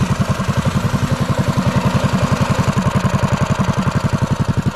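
Predator 212 single-cylinder four-stroke engine on a home-built mini bike idling steadily, with an even, rapid beat.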